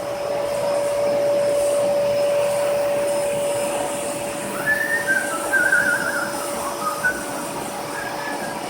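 Vacuum cleaner running steadily with a constant motor whine while it is used to groom a dog. From about halfway in, a higher, wavering, wobbling sound rises over the motor for a few seconds.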